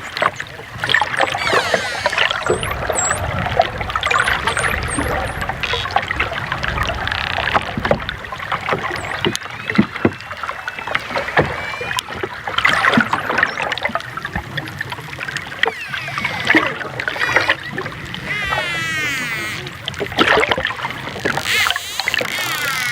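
Dolphins whistling and clicking: many overlapping whistles gliding up and down in pitch, amid rapid clicks.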